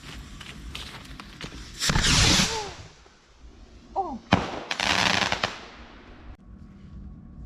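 Consumer fireworks going off: a run of sharp crackling pops, then two loud hissing bursts about two and five seconds in, with short falling whistles and a single sharp bang between them.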